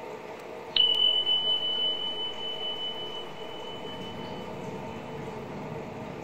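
A single clear, high ringing tone struck with a click about a second in, fading away over some four seconds, over a steady low hum.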